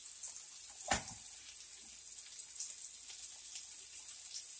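Bologna slices and sausage patties sizzling steadily as they fry in a skillet, with a single knock about a second in.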